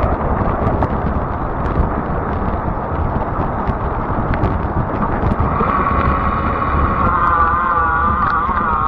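Wind buffeting the microphone over the rumble of a fat-tire e-bike riding a paved trail, with scattered light clicks. About five and a half seconds in, a steady high tone of several pitches together comes in and stays.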